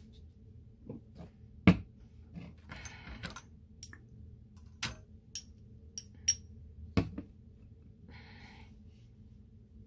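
Painting supplies handled on a table: scattered light clicks and taps, with two sharper knocks about two seconds and seven seconds in, and two short scratchy rustles around three and eight seconds.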